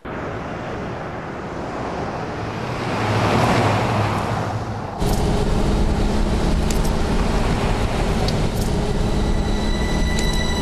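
Car driving by at night, its engine and tyre noise swelling to a peak and easing off, then, after a sudden jump about five seconds in, a steady engine and road rumble from inside a moving car. Tense music tones creep in near the end.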